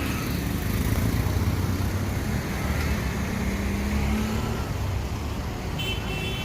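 Road traffic passing, a steady low rumble of vehicles. A vehicle horn sounds near the end.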